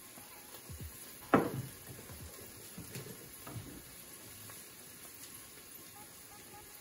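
Sautéed onions, peppers and scallions frying quietly in oil in a stainless steel pot, a faint steady sizzle. One sharp knock about a second and a half in, with a few lighter clicks after it.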